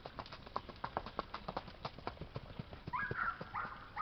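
Hoofbeats of a ridden mare on a dirt track: quick, uneven clops, several a second. From about three seconds in, a louder pitched call rises over them.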